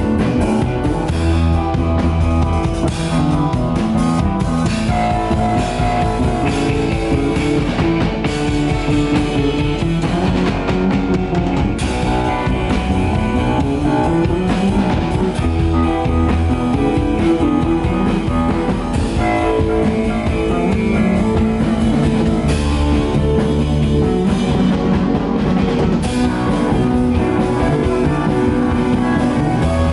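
Instrumental break of a rock song: electric guitar with bass and a drum kit playing a steady beat, with no singing.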